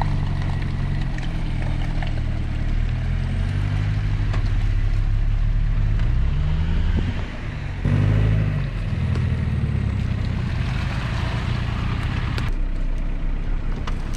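Off-road 4x4 engines working through deep mud, their pitch rising and falling with the throttle, and the sound changing abruptly twice.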